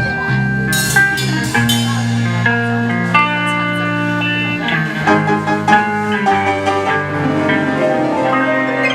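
Live band music: guitar playing held notes over a bass line, with a few sharp hits about a second in.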